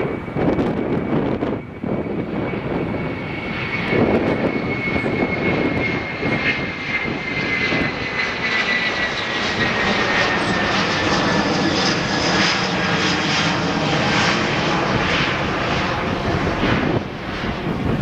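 Airbus A330-300 twin-jet's engines at full takeoff power, a steady jet rumble with a fan whine that falls slowly in pitch as the aircraft passes and draws away. Wind gusts on the microphone at the start and near the end.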